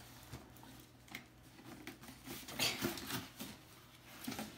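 Hands opening a cardboard box: the flaps scraping and the paper inside rustling in a scatter of small scrapes and crinkles, loudest about two and a half seconds in.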